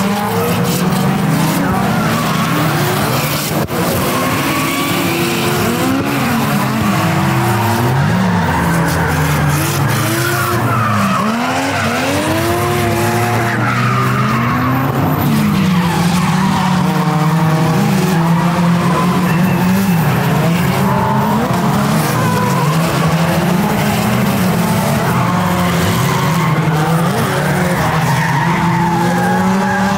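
A professional drift car's engine revving up and down over and over as it slides through the corners, with its tyres screeching and skidding throughout.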